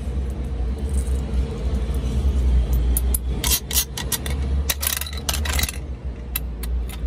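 Metal coin mechanism of a toy gumball machine worked by hand, turning with a burst of sharp clicks and rattles for about three seconds from roughly three seconds in, over a steady low rumble.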